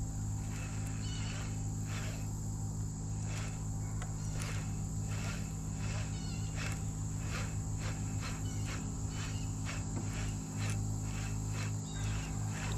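Insects chirping in a steady rhythm, about two pulses a second, over a steady low hum.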